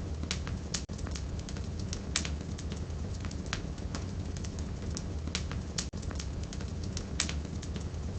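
Wood fire burning in a fireplace: irregular crackles and sharp pops of burning firewood over a steady low rumble of the flames.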